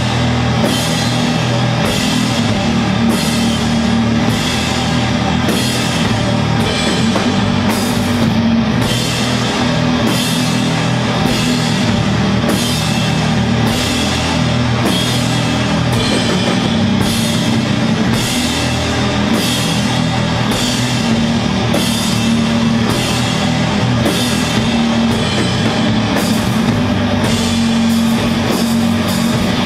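Doom metal band playing live: loud, slow heavy rock with low sustained notes and a drum kit, cymbal hits landing about once a second.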